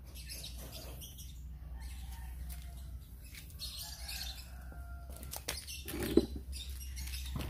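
Birds chirping, and about six seconds in a single sharp report: the GCMAG air rifle firing a pellet.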